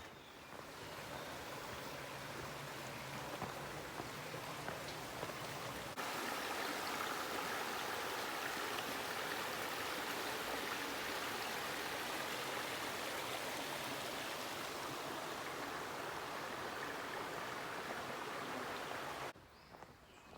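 Flowing water rushing steadily. It gets louder about six seconds in and cuts off suddenly near the end.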